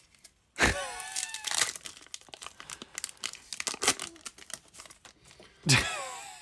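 Foil booster pack wrapper being torn open and crinkled as the cards are slid out, a run of quick crackles. Two louder sweeps falling in pitch stand out, one about half a second in and one near the end.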